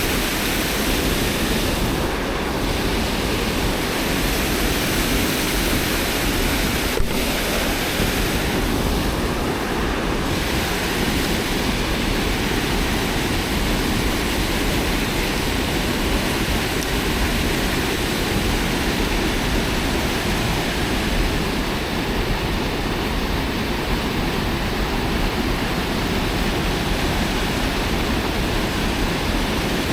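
Steady, loud rush of fast-flowing floodwater on a high river, with a single sharp click about seven seconds in.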